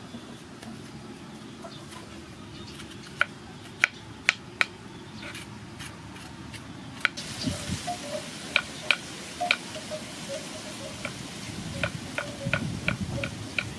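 Kitchen knife scraping the seeds and pith out of halved bitter gourd, with sharp irregular taps and clicks of the blade against the gourd and a wooden cutting board, sparse at first and more frequent in the second half.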